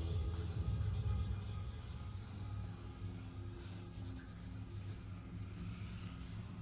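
Broad felt-tip marker drawing long strokes across paper on a wall, over background music.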